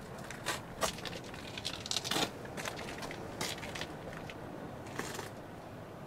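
Scattered rustles, scrapes and light clicks of handling and movement in a car's leather-trimmed cabin, the busiest cluster about two seconds in, over a faint steady background hiss.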